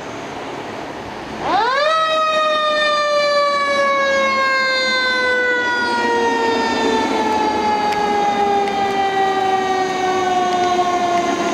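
A fire engine's mechanical siren (2018 E-One Typhoon pumper) winds up about a second and a half in, rising sharply in pitch. It then coasts, its pitch sliding slowly and steadily down as the engine leaves the station.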